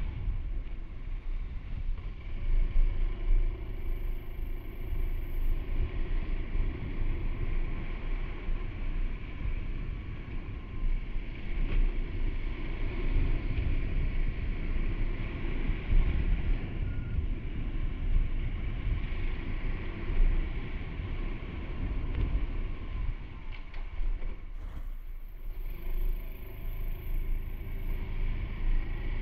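Honda Super Cub C125 single-cylinder engine and exhaust running steadily on the move, mixed with wind and road noise. The low rumble thins briefly about 25 seconds in.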